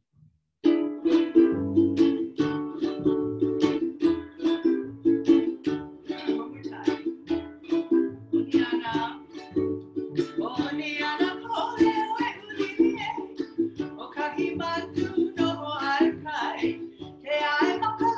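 Ukulele strumming with a plucked upright double bass underneath, the song starting about a second in. A woman's voice joins, singing, about eight seconds in.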